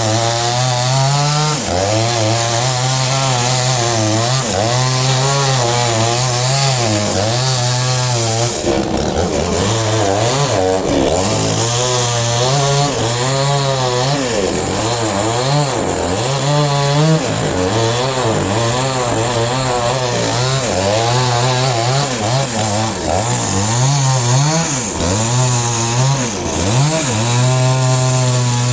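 Powered saw cutting through a trembesi log, running continuously, its motor pitch stepping up and down as the load changes.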